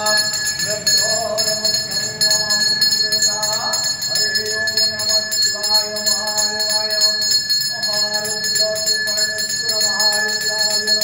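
A small brass puja hand bell rung continuously, giving a steady high ringing, with a voice chanting in long held notes.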